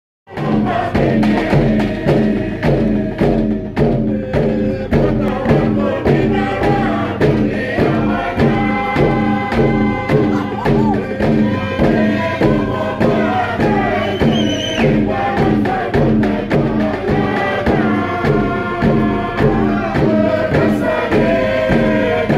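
Torres Strait Islander dance music: a group of voices singing a chant over a steady, even drumbeat.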